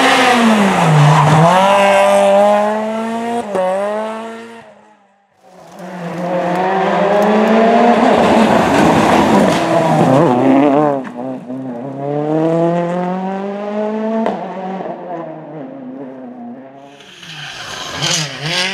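Rally car engines at full throttle on a gravel or tarmac stage, revving up through the gears with each upshift breaking the climb, along with tyre squeal. One car's sound cuts away about five seconds in, a second car comes through loud, and a quieter engine follows near the end.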